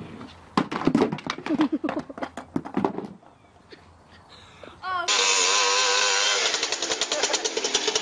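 Voices shouting and laughing for the first few seconds, then, after a pause, a moped's small engine suddenly running loud at high revs, its pitch wavering.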